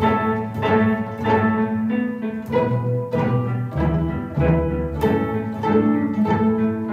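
String orchestra of violins, violas, cellos and double bass playing a lively piece in short, repeated detached notes, the violins plucked while held across the chest like guitars.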